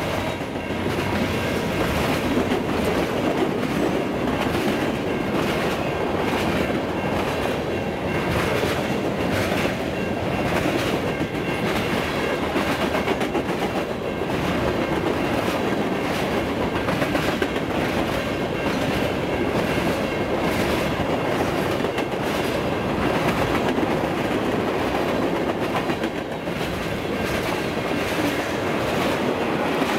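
Freight cars of a mixed train rolling past: a steady rumble of steel wheels on rail, with repeated clacking as the wheel sets pass.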